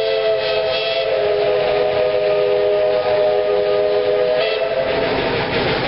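Steam locomotive whistle, Southern 2-8-0 No. 154's, blown in one long steady chord that stops about four and a half seconds in, leaving a rushing noise.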